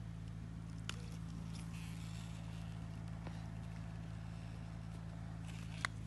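Footsteps on broken ice and frozen mud, with two sharp crunches, about a second in and near the end, over a steady low hum.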